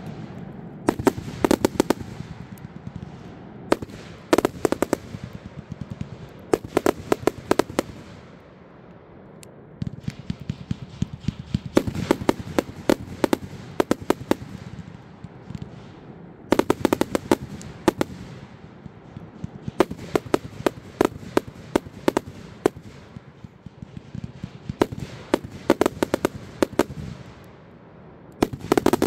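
Big Cat Frenzy 216-shot firework cake firing with salute effects: volleys of rapid sharp bangs come in bursts every two to four seconds, with a dense run of reports for several seconds near the middle.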